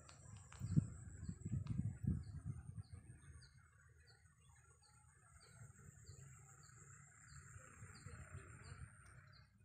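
Faint birdsong by a marsh: a bird repeating a short high call about three times a second, with a soft chorus of other birds that swells near the end. Low rumbling runs through the first three seconds.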